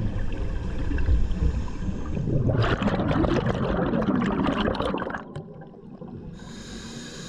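Underwater sound of a scuba diver exhaling through the regulator: a low rumble, then a dense crackling rush of bubbles for about two and a half seconds that cuts off suddenly, followed by a quieter stretch and a steady hiss near the end.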